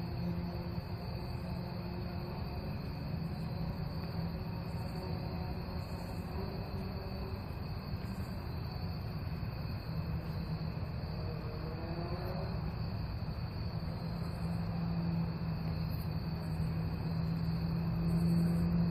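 Steady outdoor night background: a continuous high trill of night insects over a low, steady hum.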